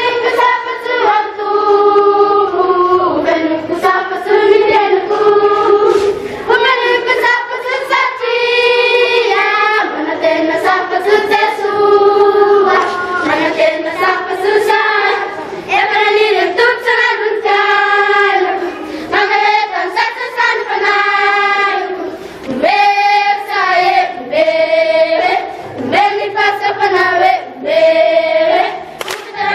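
A large group of children singing a song together, a run of sung notes, many of them held, without instruments.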